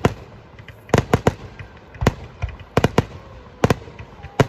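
Aerial firework shells bursting in an irregular series of sharp bangs, about nine in all after a quieter first second, several coming in quick pairs.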